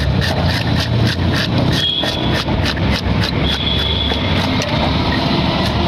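Rapid, regular scraping strokes of a spiked fish scaler being dragged over a carp's scales, about four or five strokes a second, over a steady low engine rumble.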